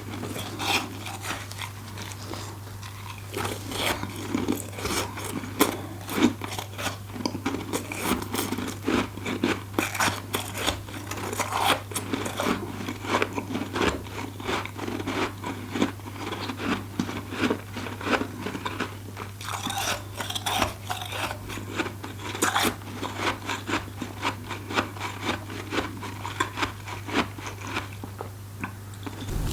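Close-up crunching and chewing of freezer frost, a dense run of quick crackling crunches that goes on throughout, over a steady low hum.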